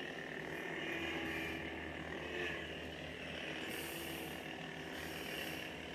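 Force FX lightsaber's electronic hum playing steadily from its built-in speaker, with a brief hiss about four seconds in.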